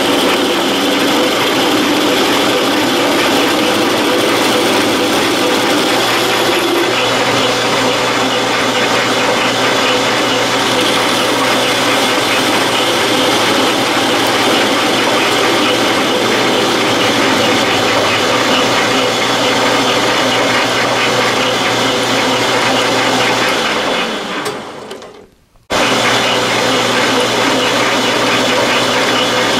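Metal lathe running steadily while a homemade carbide-insert tool takes a facing cut across the end of a round bar, with a steady drive hum under the cutting noise. About three-quarters of the way in, the sound fades away and then cuts back in abruptly.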